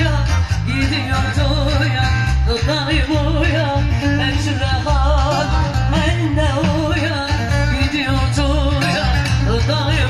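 Loud live Turkish folk dance music: a woman singing an ornamented, wavering melody over a heavy, steady beat.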